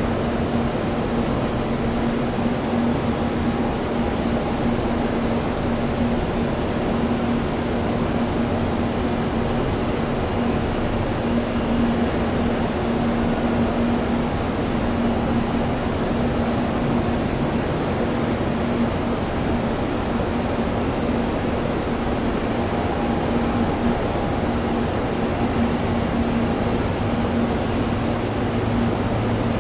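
Steady mechanical hum with a constant low tone. A higher tone joins for a few seconds past the middle, and a deeper hum comes in near the end.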